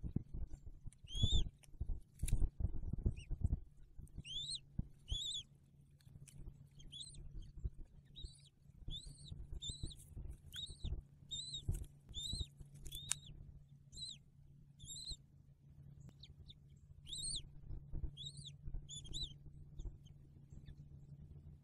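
Newly hatched bald eaglet peeping: short, high, arched chirps, one or two at a time, repeated every second or so over a steady low hum. Low rumbling thumps in the first few seconds.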